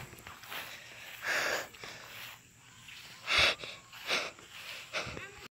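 A person breathing hard into a close microphone: a few heavy, wheezy breaths, the loudest about three and a half seconds in, with light bumps from handling the phone. The sound cuts off abruptly near the end.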